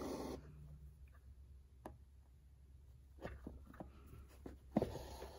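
Embroidery needle and floss drawn through the cap's fabric in a wooden hoop: faint rustling as the thread is pulled through, at the start and again near the end, with a few small ticks of the needle and hoop in between.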